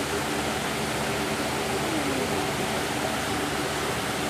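Small waterfall splashing down over rocks: a steady rushing of water.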